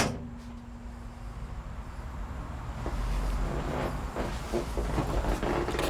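A sharp metal clunk right at the start as a door on an old abandoned bulldozer is opened, then a low steady rumble with faint knocks and rustles of handling near the end.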